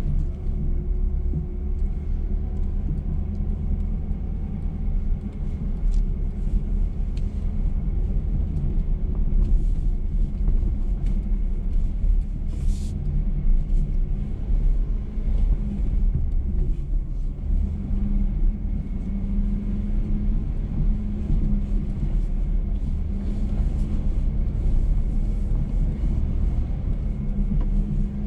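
2021 GMC Sierra X31 pickup running in deep sand: a steady low engine and drivetrain rumble, with a brief high hiss about halfway through.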